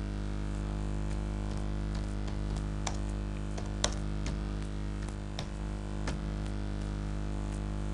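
Irregular keystrokes on a computer keyboard, single clicks spaced a half second to a second or more apart, over a steady hum.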